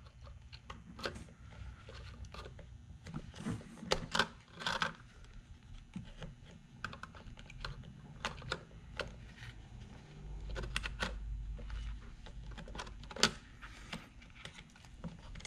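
Scattered light clicks and scrapes as a small pick and fingers pry a horn connector and its wires free from the plastic back of a steering wheel.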